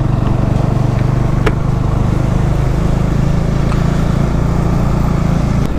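Motorcycle engine running at a steady cruising speed, a low even drone, with a brief click about a second and a half in.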